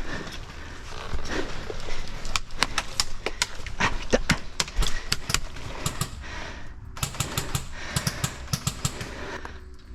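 Airsoft gunfire: two runs of rapid, sharp shots with a short pause between them.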